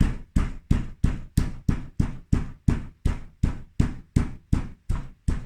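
A small hand stone pounding garlic on a flat flint grinding stone: steady, evenly spaced knocks, about three a second.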